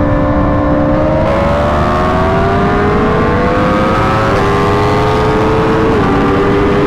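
Engine accelerating hard with its pitch climbing steadily, dropping twice at upshifts, about halfway through and near the end, over a steady low rumble.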